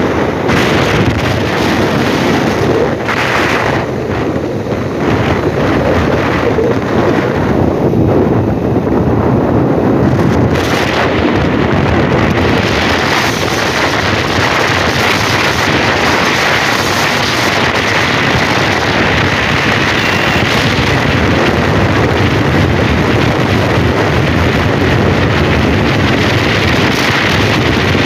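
A motorboat's engine running steadily, with wind blowing over the microphone.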